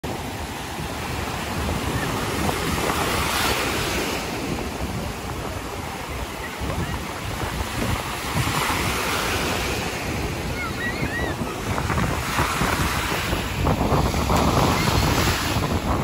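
Sea surf breaking and washing up a sandy beach, surging every four seconds or so, with wind buffeting the microphone.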